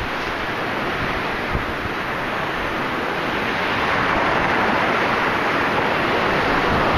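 Ocean surf washing up the beach with wind on the microphone, swelling a little in the second half.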